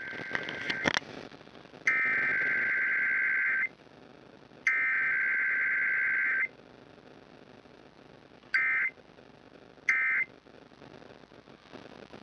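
Emergency Alert System SAME digital data bursts from an automated Required Weekly Test on a public radio feed. The end of one header burst is followed by two more header bursts of about two seconds each, then, after a pause, two short end-of-message bursts. Each burst is a rapid two-tone warbling buzz, with no attention tone and no voice message between them.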